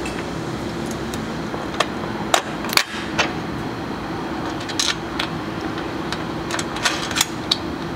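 Small metal clicks and clinks of bolts and washers being handled and fitted by hand into a steel roof-rack mount, scattered through the second half, over a steady background hum.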